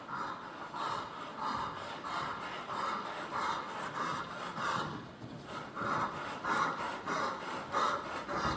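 Ridden dressage horse breathing hard in a steady rhythm, about two noisy breaths a second, while working at trot.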